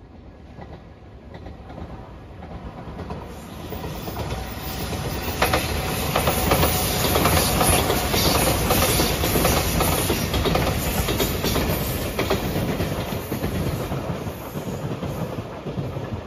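JR Shikoku 8000 series electric multiple unit passing at speed. Its rumble builds, peaks around the middle with wheels clacking over rail joints, then fades away.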